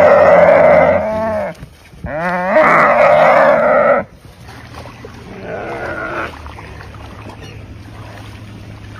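Nyala bleating in distress as an African wild dog attacks it: two long, loud calls about two seconds apart, then a fainter, shorter one about halfway through.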